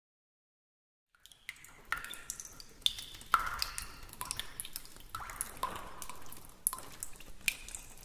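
Stable Audio AI-generated sound effect of water dripping: irregular drips and plinks into water, starting about a second in.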